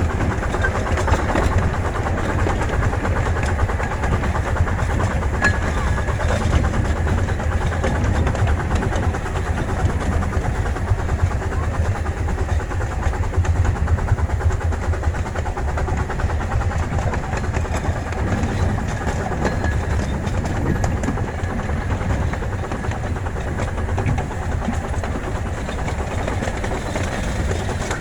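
Steady rumble of a miniature steam railway ride: the train's cars running along the track.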